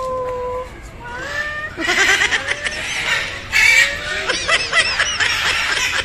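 Macaws calling from the path with a run of loud squawks and shrieks, the loudest about two seconds in and again past the middle, among a crowd's voices.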